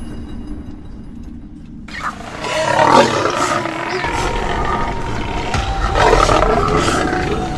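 Wild animals roaring and growling, starting abruptly about two seconds in after a low rumble, loudest around three seconds and again about six seconds in, as a lioness and Cape buffalo confront each other.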